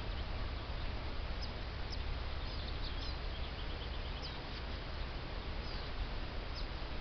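Young chicks peeping faintly, a scattering of short high peeps with a quick run of them about halfway through, over a steady background hiss.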